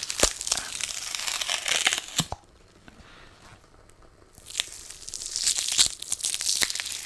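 Sticky sheet of a lint roller crackling and tearing as it is handled, a dense run of small sticky clicks and rasps. The sound breaks off a little over two seconds in and picks up again about two seconds later.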